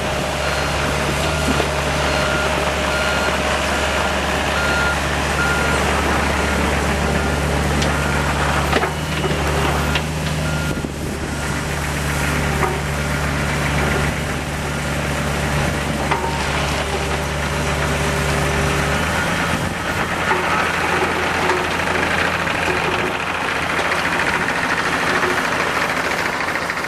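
John Deere 50D mini excavator's diesel engine running steadily, with a motion alarm beeping at an even pace through the first half. About two-thirds of the way in, the engine note drops and shifts.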